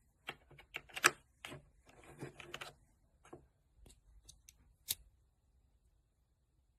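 Irregular close clicks, taps and rustling, densest in the first three seconds with the loudest click about a second in, then a few scattered clicks up to a sharp one near five seconds.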